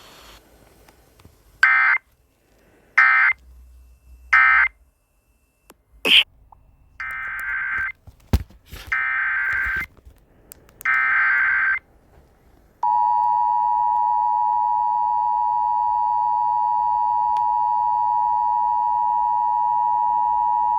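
Emergency Alert System tones. First come three short SAME data bursts about 1.4 s apart, the end-of-message code closing the tornado warning, and a couple of clicks. Then come three longer SAME header bursts announcing a new alert, and about 13 seconds in the steady two-tone EAS attention signal begins.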